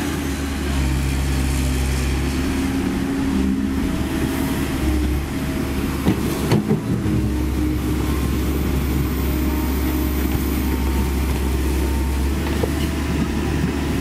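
Komatsu PC130F-7 excavator's diesel engine running steadily under working load, with hydraulic whine tones that step up and down as the boom and bucket move. A few sharp knocks come about six to seven seconds in.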